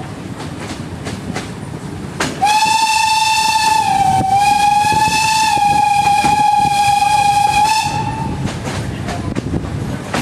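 Locomotive whistle blowing one long steady note for about five seconds, starting a couple of seconds in, its pitch dipping slightly early on, over the rhythmic clatter of the carriage wheels on the rails.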